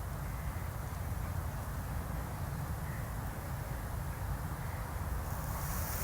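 Crows cawing faintly in the distance over a steady low rumble on the microphone; about five seconds in, a crunching of footsteps on frozen ground begins.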